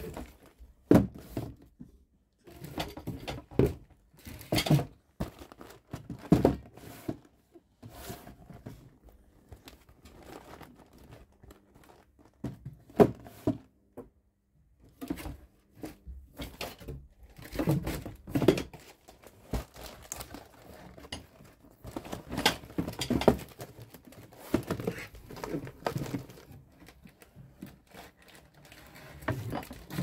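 Cardboard boxes of water-filter cartridges being set down and slid into place in a drawer: irregular knocks, scrapes and rustles of cardboard.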